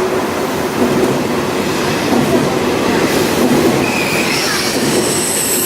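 KTX high-speed train braking: steady rumble of wheels on rail, with high-pitched brake squeal setting in about four seconds in and getting stronger near the end.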